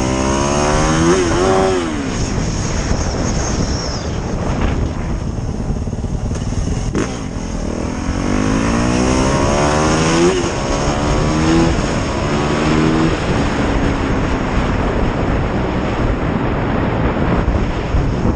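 Motorcycle engine accelerating while riding. Its pitch climbs and drops back near the start, then climbs again twice more in the second half, under steady wind and road noise.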